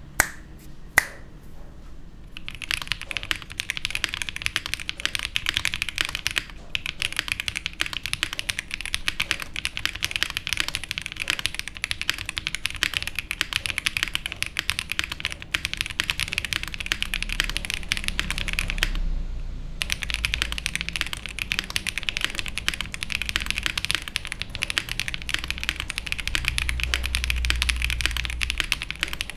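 Fast typing on a QK75 mechanical keyboard with stock, unlubed Owlab Neon switches on a POM plate and GMK keycaps: a dense stream of keystroke clacks. Two sharp single clicks come first, then steady typing from about two seconds in, with short breaks about six seconds in and again about nineteen seconds in.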